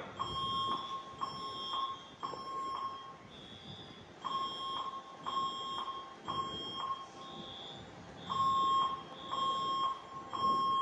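Fire alarm devices sounding during an alarm test. A mid-pitched horn tone pulses in short groups with pauses of about a second and a half between them, and a higher-pitched beep repeats alongside it, typical of smoke alarms.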